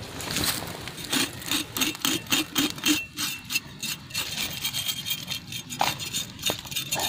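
A large knife scraping along the hide of a porcupine carcass in short, quick rasping strokes, about four a second near the start, then more irregular.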